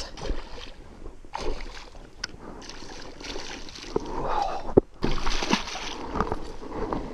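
A fish splashing at the water surface right beside a boat as it strikes at a lure, in several bursts of splashing. A sharp knock comes just before the last splash.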